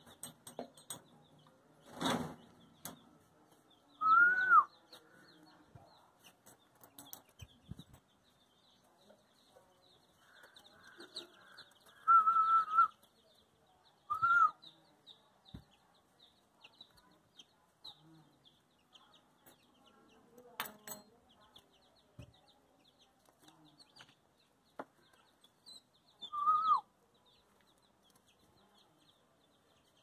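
A person whistling short calls to summon chicks, four times, one note held for about a second, the others quick rising-and-falling notes. Chicks peep continuously in the background, and there is one sharp click about two-thirds of the way through.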